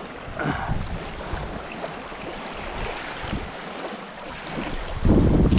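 Steady rush of running water, with wind buffeting the microphone; about five seconds in the low rumble of the wind on the microphone gets suddenly much louder.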